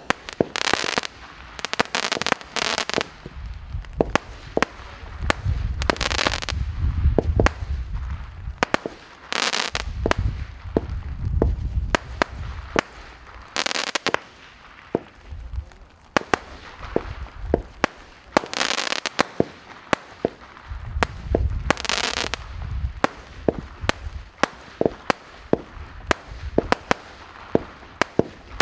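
Magnum Series Moon Cake, a Category 2 consumer firework cake, firing shot after shot: a long, irregular run of sharp reports, some followed by a short hiss.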